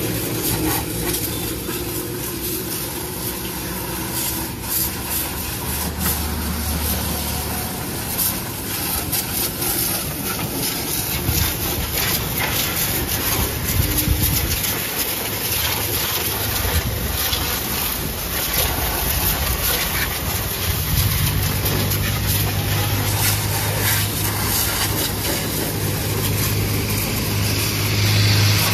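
High-pressure water jet hissing and spattering as it blasts caked mud off a tractor's rear wheel and hitch linkage, over a steady low hum that grows stronger about two-thirds of the way through.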